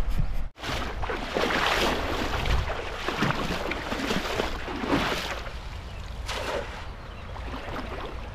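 Rushing, splashing water of a shallow river, swelling in surges about once a second, over a low rumble of wind on the microphone.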